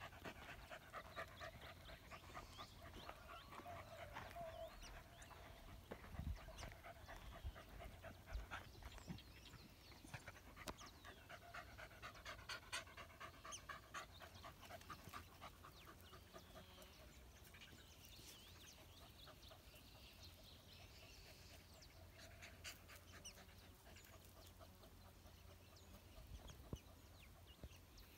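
Faint sounds of rabbit-hunting beagles, heard low under scattered small clicks and rustles.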